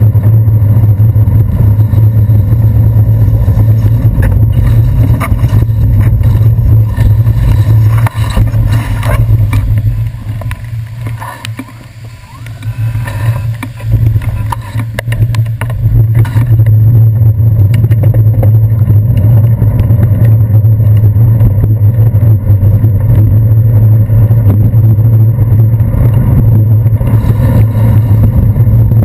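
Steady low rumble of wind and road vibration on a handlebar-mounted GoPro Hero 2 as a bicycle rides on wet city streets, with traffic mixed in. The rumble drops away about ten seconds in and builds back up after about six seconds.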